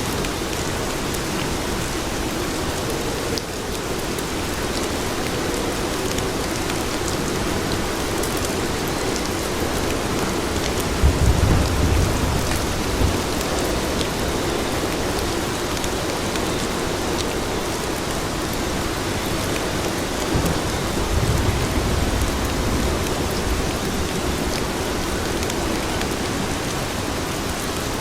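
Steady rain falling on pavement, with two low rumbles of thunder, one a little before the middle and one about two-thirds through.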